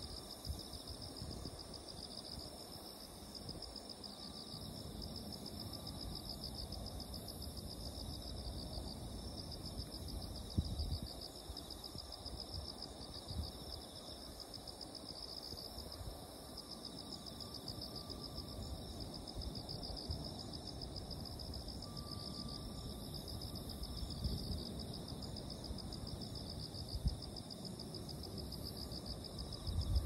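Summer night insect chorus: a continuous shrill trill that pulses rapidly. A low rumble runs beneath it, with a couple of brief soft bumps.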